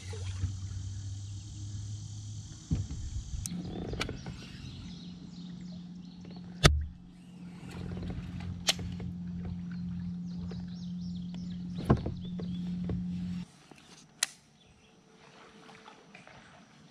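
A small motor hums steadily, stepping up slightly in pitch a few seconds in, then cuts off suddenly near the end. Several sharp knocks sound over it, the loudest about seven seconds in.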